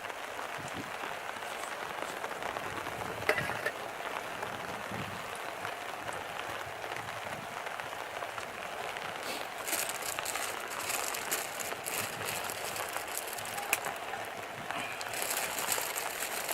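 Bean sprouts stir-frying in a pan: a steady sizzle with scattered clicks and scrapes. The sizzle turns louder and crackly about ten seconds in and again near the end.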